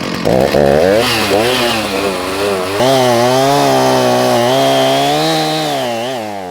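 Chainsaw engine running under the throttle, its pitch rising and falling over and over as it is revved, then dropping away at the end as the throttle is let off.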